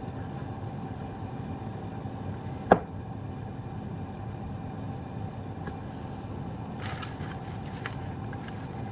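A chef's knife slicing a seitan roast thinly on a wooden cutting board, with a few faint scraping strokes near the end, over a steady background hum. A single sharp click about three seconds in is the loudest sound.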